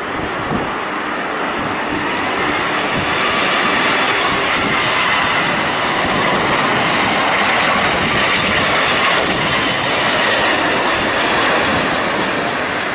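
Airliner's jet engines passing low overhead: a loud, rushing roar that swells over the first few seconds and holds, with a faint rising whine early on.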